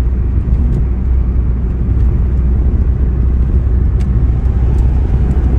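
Steady low rumble of a car driving at highway speed, tyre and engine noise heard inside the cabin.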